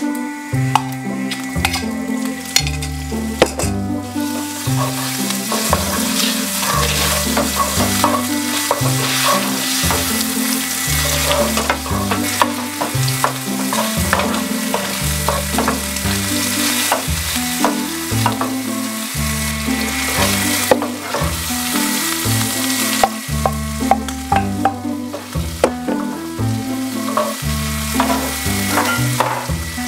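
Chicken pieces and minced garlic sizzling in hot oil in a granite-coated frying pan, with a spatula stirring and scraping against the pan. The sizzle gets much louder about four seconds in, when the chicken goes in, and stays steady after that.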